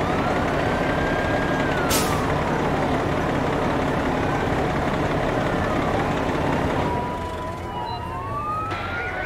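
Fire engines with diesel engines running and a siren wailing, sliding up and down in pitch, plus a brief air-brake hiss about two seconds in. Toward the end the engine rumble eases and several sirens wail over one another.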